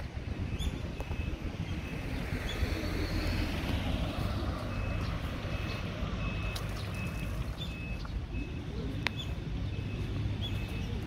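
An electronic warning beeper sounding short, even beeps about twice a second, over a steady low rumble of traffic.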